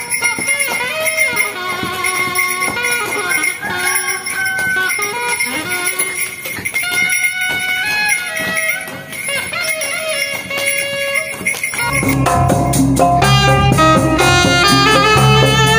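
Music: a melody with sliding notes for about twelve seconds, then a sudden change to a fuller track with a strong bass beat.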